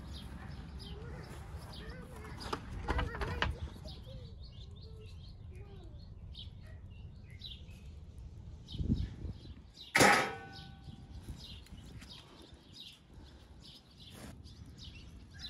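Birds chirping outdoors while a cooking pit is opened in the earth, with rustling and dull knocks as the foil-wrapped lamb is uncovered. About ten seconds in comes one sharp metallic clank that rings briefly, the loudest sound here.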